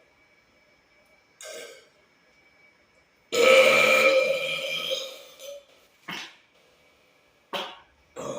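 A man burping: a short burp about a second and a half in, then one long, loud burp of about two seconds that slowly fades, then a few short burps near the end.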